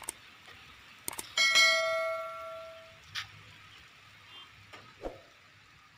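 Subscribe-button animation sound effect: a few sharp mouse clicks, then a bright bell ding about a second and a half in that rings out and fades over a second or so, followed by a few softer clicks.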